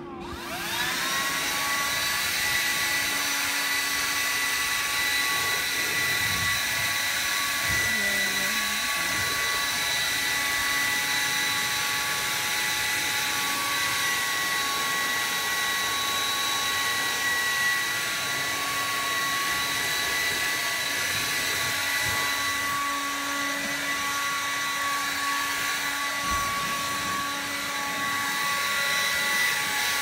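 DeWalt cordless handheld leaf blower spinning up with a rising whine, then running steadily at full speed: a high electric-motor whine over rushing air as it blows fallen leaves off the rocks.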